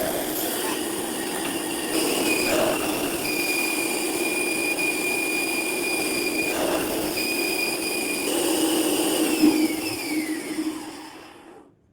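Bandsaw running and cutting wood: a steady hum under a high blade whine that breaks off and returns a few times and slides down in pitch near the end. The sound cuts off abruptly just before the end.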